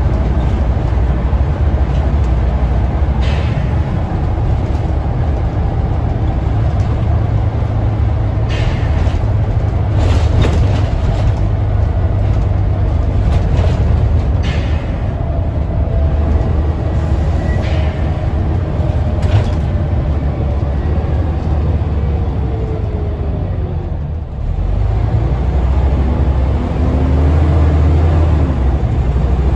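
Scania N94UD OmniDekka double-decker bus under way, heard from the upper deck: a steady low rumble of diesel engine and road noise, with a whining tone that falls slowly through the middle. The engine eases off briefly about four-fifths through, then picks up again, and a few short rattles come through along the way.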